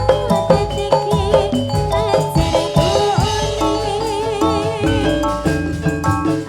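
Live Ndolalak music played loud through a stage sound system: a wavering vibrato melody over held keyboard-like notes, regular percussion strikes and heavy bass.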